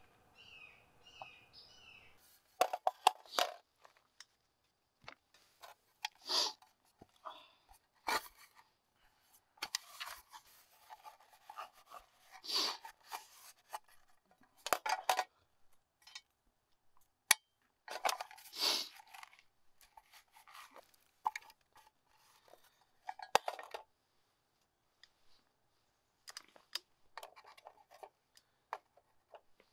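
An aluminium mess tin being scraped out and wiped by hand, in irregular short scrapes and rubs with sharp metallic clinks of a utensil against the tin. A bird calls a few times in quick succession at the start.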